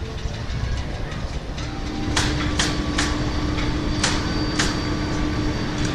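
Construction-site noise: five sharp strikes, some leaving a high ringing tone, over a steady low engine rumble and a hum that starts about a second and a half in.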